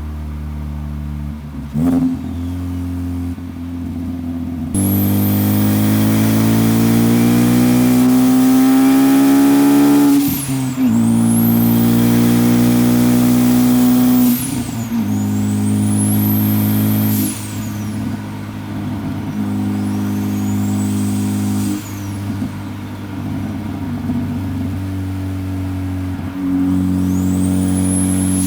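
Turbocharged Ford Focus ST engine pulling under acceleration, the revs climbing then dropping at a gear change, with a high turbo whistle rising and falling several times. The car has a boost leak and is making almost no boost.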